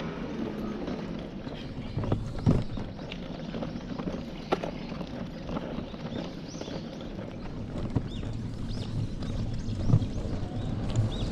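Baby stroller rolling along a paved sidewalk: a steady low rumble from its wheels with irregular knocks and rattles.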